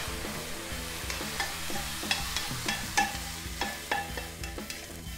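Red onion rings frying in a nonstick pan with maple syrup added to caramelise them: a steady sizzle, with the tongs clicking and scraping on the pan as they are turned. Near the end the onions are pushed out of the tipped pan into a steel bowl.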